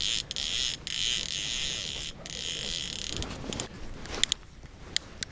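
Rustling and handling noise from a camera being carried while walking, a steady hiss broken by short gaps, with a few sharp knocks near the end.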